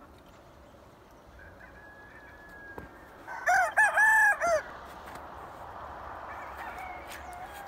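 A young Asil Hamlin gamecock crowing once, loud: a short crow of about four linked notes lasting just over a second. Fainter crowing from other roosters can be heard before and after it.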